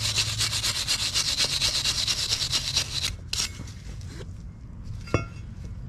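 Steel wire brush scrubbing the brake dust out of the sliding contact areas of a cast-iron BMW X3 front caliper bracket, in rapid back-and-forth strokes that stop about three seconds in. Then a few light clicks, the sharpest about five seconds in.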